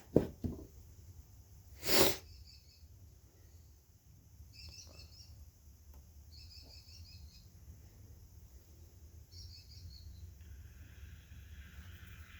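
A bird repeats a short trilled chirping phrase four times, roughly every two seconds. Near the start come two sharp knocks, and about two seconds in there is a loud, short burst of hissing noise, the loudest thing heard.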